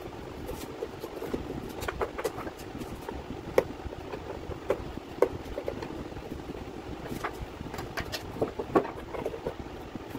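Small clicks and knocks, about a dozen at uneven intervals, as an amplifier board and a Bluetooth module panel are handled and fitted into a wooden speaker box with a screwdriver. A steady rushing noise runs underneath.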